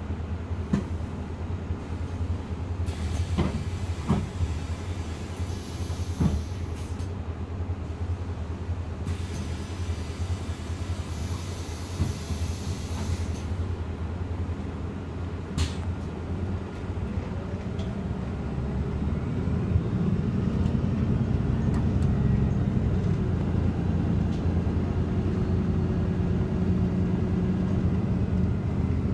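Cabin of an IvecoBus Urbanway 18 Hybrid articulated bus under way: a steady low rumble with occasional knocks and rattles and two spells of hiss. From about 17 s in, a whine rises in pitch and the running grows louder for the rest of the stretch.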